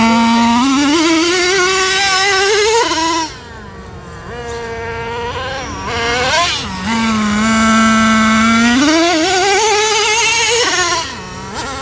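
Small two-stroke nitro engine of a Traxxas Revo 3.3 RC monster truck running hard, its pitch climbing as it accelerates, then dropping off when the throttle is released about three seconds in. It is quieter for a few seconds, then revs again, holds a steady high note and climbs once more before backing off near the end.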